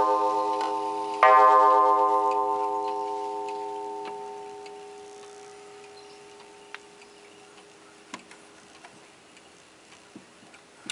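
Antique Gustav Becker wall clock's striking gong, struck once about a second in as the hour strike at twelve ends, ringing with many overtones and fading away over several seconds. Faint ticks and clicks of the clock are heard after the ring dies.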